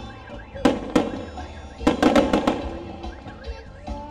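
Aerial fireworks bursting: one or two sharp bangs about a second in, then a quick string of several bangs around two seconds in, over a steady low rumble.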